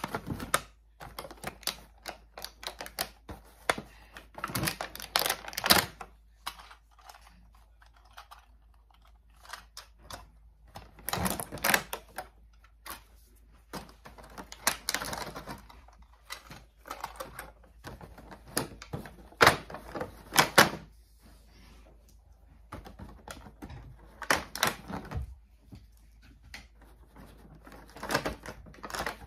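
Hard plastic clicking and clattering as toy subway train track pieces and cars are handled and pulled out of a plastic packaging tray. The clicks come in short irregular clusters with quiet gaps between.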